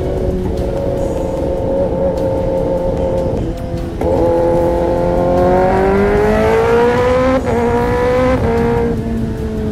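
Honda CBR600RR's inline-four engine under way with wind rush, running steadily at first. About four seconds in the throttle opens and the revs climb, with two short breaks in the rise as it shifts up, then settle to a steady cruise near the end.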